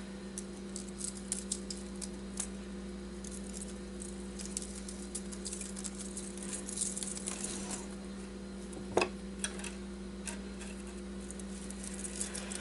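Light rustling and small ticks of thin copper winding wire being unwound by hand from a power-supply transformer, with one sharper click about nine seconds in. A steady low hum runs underneath.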